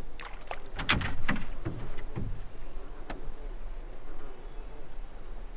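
A cluster of sharp knocks and taps in a canoe, loudest about a second in, followed by a few fainter taps.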